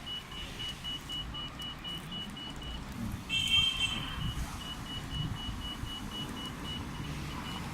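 Electronic beeping: a fast, steady train of short high pips, interrupted about three seconds in by a brief, louder beep of several tones, over a low rumble.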